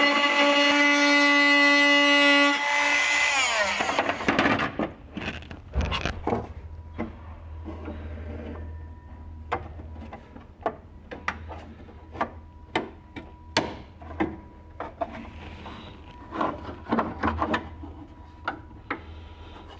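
Dremel rotary tool running with a steady high whine as it shaves fiberglass, then switched off about two and a half seconds in, its whine falling in pitch as it spins down. After that come many sharp knocks, clicks and some rubbing as a bracket is handled and test-fitted against the fiberglass, over a low hum.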